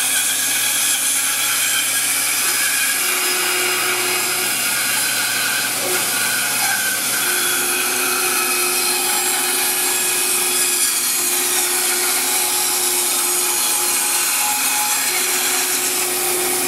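A 1919 band saw running and cutting a curved wooden chair part: the steady rasp of the blade through the wood over the machine's hum, with a faint steady tone that comes and goes during the cut.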